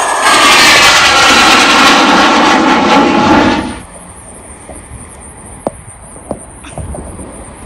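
Twin-engine business jet passing low overhead on its climb-out, its turbofans loud with a sweeping whine. About four seconds in the sound cuts off suddenly to a much quieter faint rumble with a few light knocks.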